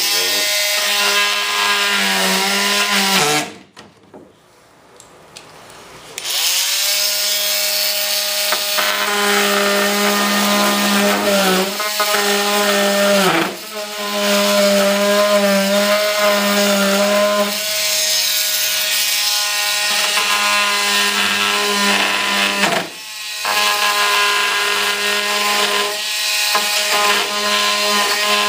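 Small electric power tool running with a steady motor whine over a rasping grind as it works the material. It cuts out about three seconds in and starts again a few seconds later, and its pitch sags twice more under load.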